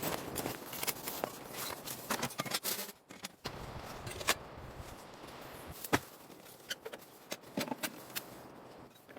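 Irregular rustling with scattered sharp clicks and knocks, the loudest about four seconds in and about six seconds in.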